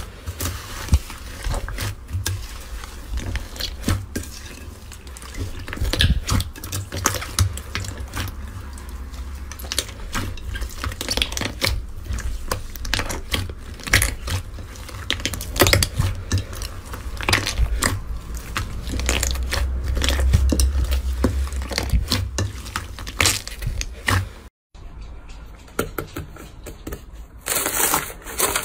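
Slime being squeezed and pressed by hand, giving dense crackling and popping clicks with low handling thumps. Near the end the sound cuts out briefly and another slime clip starts with a faint high steady tone under the crackle.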